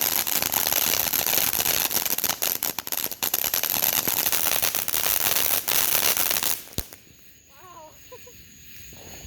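Firework crackling densely with a rapid stream of sharp pops, stopping abruptly about two-thirds of the way through.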